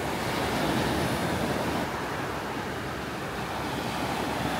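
Small waves washing up on a sandy beach: a steady surf hiss that swells a little about a second in.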